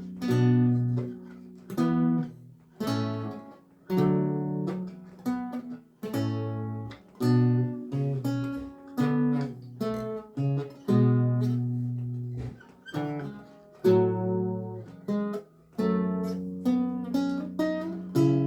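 Solo lute music: plucked notes and chords, each struck sharply and left to ring and fade, with low bass notes sounding under a slow melody.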